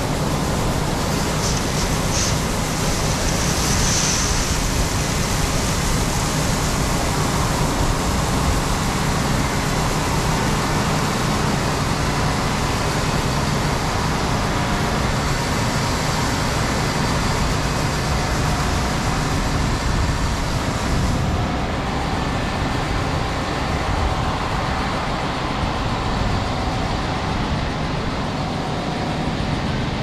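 Heavy corn-harvest machinery running steadily: a low engine hum under a loud, even rush of machine noise. The highest part of the hiss thins out about two-thirds of the way through.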